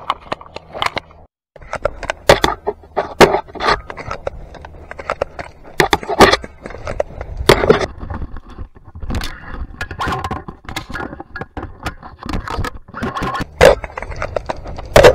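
Clothing and gear scraping through dry grass and brush, with irregular snaps and crackles of twigs, as someone crawls along the ground.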